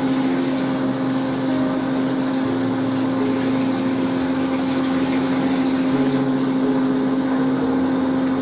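Steady machine hum at one constant low pitch, like a motor or fan running without change.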